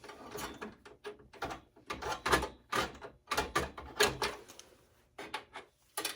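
Irregular clatter and knocks of metal and plastic computer parts being handled and pulled apart while a desktop PC is dismantled for scrap. The sounds pause briefly near the end.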